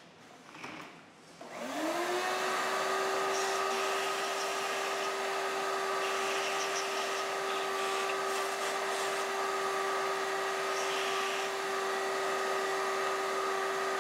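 Shop vacuum switched on about a second and a half in: its motor whines up to speed and then runs at a steady pitch.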